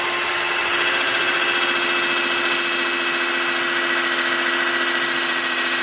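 Cordless drill with a 7/64 inch bit running steadily at full speed, drilling out the centre of a pop rivet in PVC ductwork to remove it. The motor runs at an even pitch and cuts off suddenly at the end.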